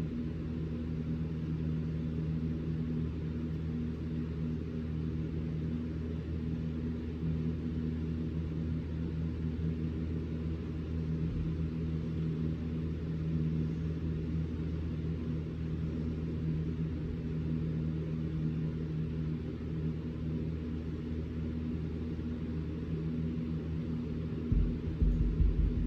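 Shop vac running steadily with a low, even drone, vacuuming loose carpet fibres out of cut seams. A few low thumps near the end.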